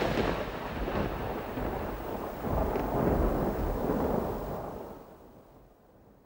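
Thunder sound effect: a long rolling rumble that swells again around three seconds in, then fades away near the end.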